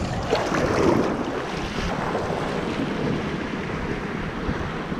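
Shallow seawater splashing and sloshing around a hand as it lets a fish go, busiest in the first second, then a steady wash of water. Wind buffets the microphone underneath.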